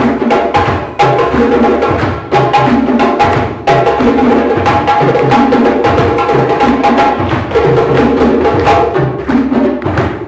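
A group of hand drums played together in a fast, steady rhythm: dense sharp strokes over ringing pitched drum tones.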